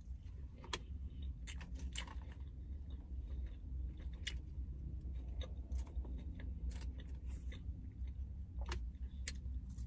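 A person chewing crisp lettuce salad close to the microphone: irregular crunches, over a steady low hum.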